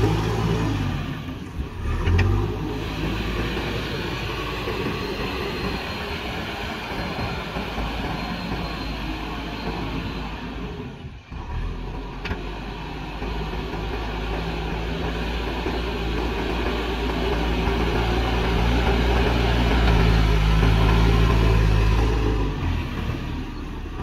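Diesel engine of a JCB backhoe loader running under load as its front bucket pushes soil. The engine note dips briefly near the middle, then grows louder and stronger toward the end as the machine comes closer.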